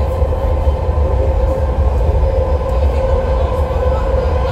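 Inside a 1972 Rohr-built BART A car running at speed between stations: a steady deep rumble with a steady whine on top.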